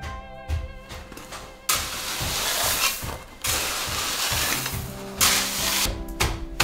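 Crushed gravel being scraped and shovelled, three long gritty scrapes, over soft background music.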